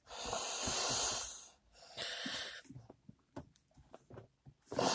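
A man breathing out hard twice while straining to press a tight-fitting gear stick gaiter into the car's centre console, followed by a scatter of light clicks and rustles as the gaiter frame is worked into place.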